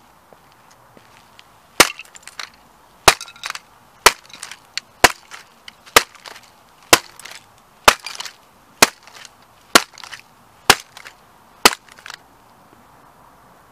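Sneaker stamping repeatedly on a plastic Ferrari model car on asphalt. There are eleven sharp cracks about a second apart, each followed by smaller crackling as the model's body breaks up. They start about two seconds in and stop near the end.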